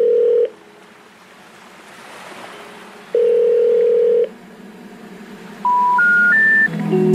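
Telephone call-progress tones: two long, steady, low tones about three seconds apart, then three short tones stepping upward near the end. The rising three-note signal is the special information tone that comes before a 'number not in service' message.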